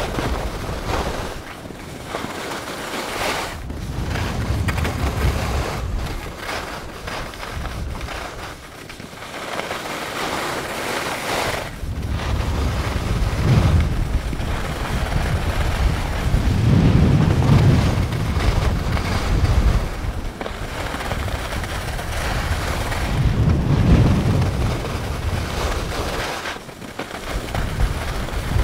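Wind rushing over the microphone of a camera worn by a skier moving downhill, mixed with the scrape of skis on packed, groomed snow. The rush swells and fades with the turns, loudest in the middle and again near the end.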